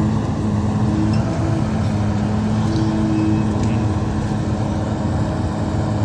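Kobelco SK260 excavator's diesel engine running steadily as the machine works, with a droning tone that swells twice.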